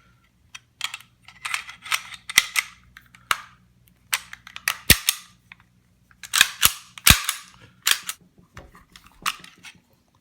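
CZ52 pistol being reassembled: an irregular run of sharp metallic clicks and clacks as steel parts snap into place, with several loud snaps in the middle.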